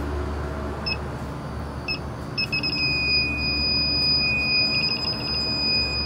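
Inficon TEK-Mate electronic refrigerant leak detector beeping about once a second. About two and a half seconds in, the beeps quicken and run together into a continuous high alarm tone as the detector goes crazy, sensing the trace gas escaping from a leak near the evaporator lines. A steady low hum runs underneath.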